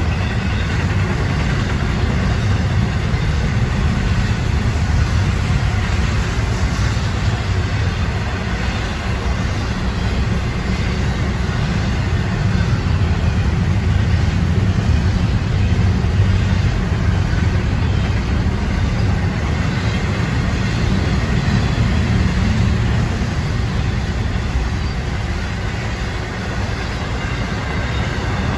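Florida East Coast Railway intermodal freight cars rolling past: a steady low rumble of wheels on rail, with a lighter hiss of rail noise above it.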